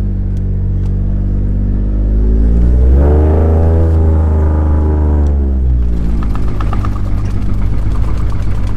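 Ford F-150 Raptor pickup's engine heard from inside the cab while driving in sand under throttle. The revs climb about three seconds in, hold, then drop back, and a rattling clatter comes in over the engine near the end.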